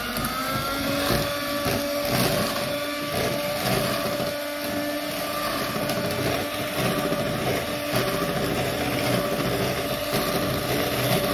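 Electric hand mixer running steadily at a constant pitch, its beaters whirring through sponge-cake batter as it is beaten after melted butter, baking powder and ovalet are added.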